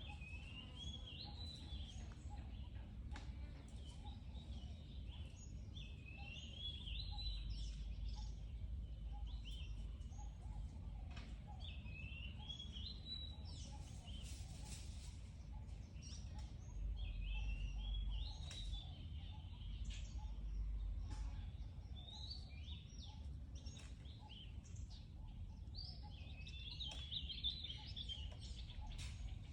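A bird singing a short, rising, warbling phrase that repeats every few seconds, over a steady low background rumble. About halfway through there is a brief rustle.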